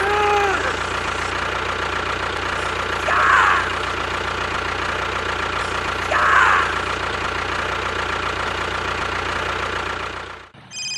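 Steady mechanical hum of a small motor or engine running, with three brief squeaks about three seconds apart. It cuts out shortly before the end and gives way to a steady electronic tone.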